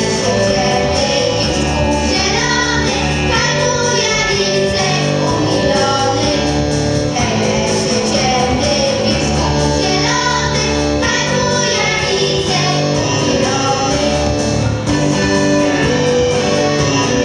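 A group of voices singing a Polish folk song over instrumental accompaniment with a steady bass line.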